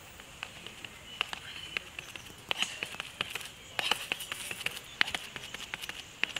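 Rapid footfalls of a runner's shoes slapping a rubberized synthetic track, sharp irregular strikes that grow louder and denser as she runs past close by.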